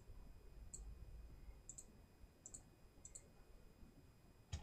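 Near silence broken by faint, scattered computer mouse clicks, a few single and a few quick doubles, with one louder, sharper click near the end.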